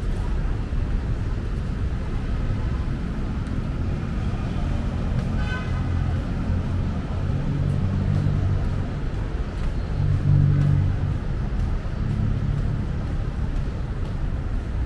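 Busy city road traffic: vehicle engines running in a continuous low rumble, swelling as vehicles pass about halfway through, with a brief high tone about five seconds in.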